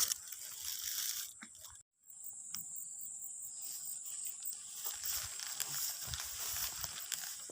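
Rustling and crinkling handling noises that stop dead about two seconds in. After that comes a steady high-pitched hiss with scattered light ticks and soft rustles.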